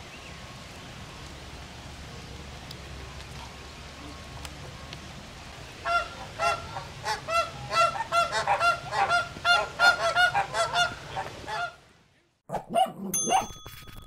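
A flock of flamingos honking in a noisy squabble: rapid overlapping calls break out about six seconds in over a steady background hum and stop suddenly near the end. A short chime-like jingle with ringing tones follows.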